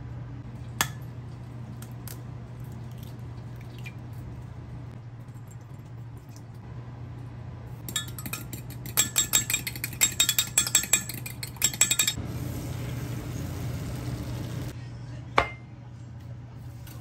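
An egg being beaten in a glass Pyrex measuring cup: a rapid run of utensil clinks against the glass for about four seconds, over a steady low hum. A single sharp knock sounds about a second in and another near the end.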